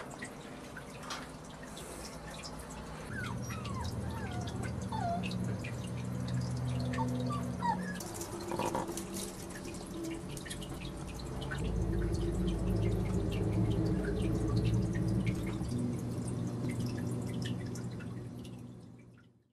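Maltese puppies playing in a pen: scattered light clicks and taps, with a few short high squeaks three to five seconds in, over a steady low hum.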